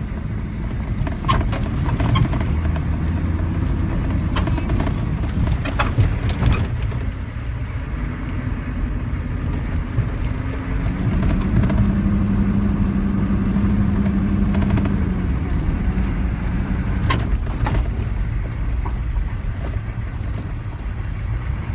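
Vehicle driving with its engine running as a steady low rumble, with scattered knocks and rattles. About halfway through, a steadier engine tone comes up for a few seconds.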